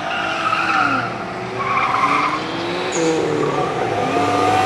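A car driven hard through a cone course: the engine rises and falls in pitch as it revs, and the tyres squeal briefly in the turns, three times.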